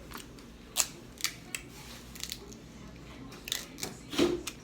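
Crab shell being cracked and broken apart by hand while eating, a string of short sharp cracks and clicks close to the microphone, the loudest about a second in and near the end.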